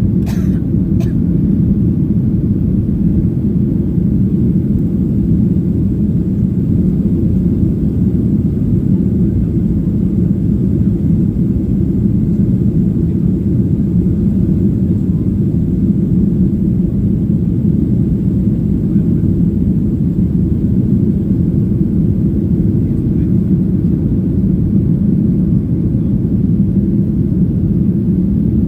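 Steady cabin rumble of a Boeing 737-900 airliner: the engines and airflow make an even, low, unbroken drone, with a brief click about half a second in.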